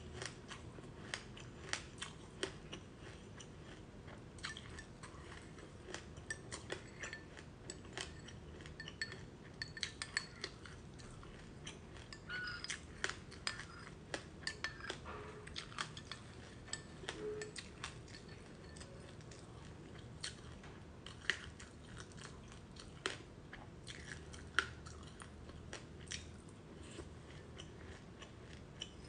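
Close-miked chewing of a mouthful of black sesame seeds and passionfruit: irregular crisp crunches and clicks. Near the end a metal spoon scrapes and clinks in a glass bowl.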